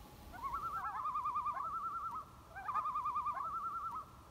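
A bird's rapid, wavering call, given twice, each phrase about two seconds long and opening with a few quick rising notes.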